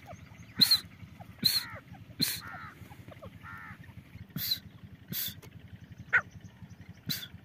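Female grey francolin (desi teetar) calling: a run of short, harsh calls about one a second. A pause in the middle holds softer, quicker notes.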